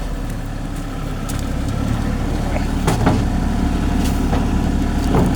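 Kubota U30s mini excavator's diesel engine running steadily, its note getting fuller a little under two seconds in as it works, with a few sharp knocks around three seconds in and near the end.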